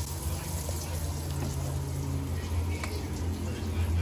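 Crumbed bass fillets sizzling as they shallow-fry in hot oil in a pan, over a steady low hum.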